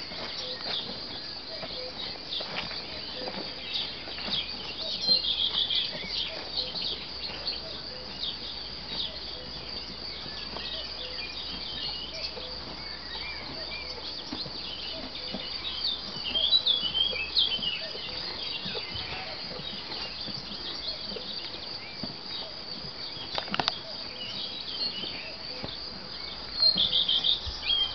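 Horses chewing hay, faint crunching clicks, over a steady high drone of insects, with three short bouts of bird chirping, the loudest in the middle.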